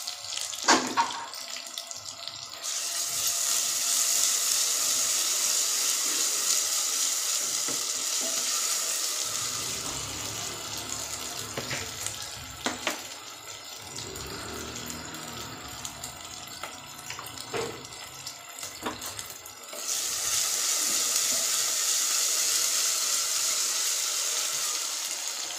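Onions and ginger-garlic paste sizzling in hot oil in a pressure cooker pan. The sizzle flares up twice as the mixture is stirred, each time fading off gradually, with a few clicks and scrapes of a wooden spoon against the pan.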